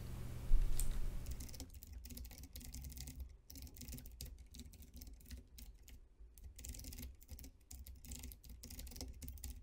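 Typing on a computer keyboard: a run of quick, unevenly spaced keystrokes, with one louder click about half a second in.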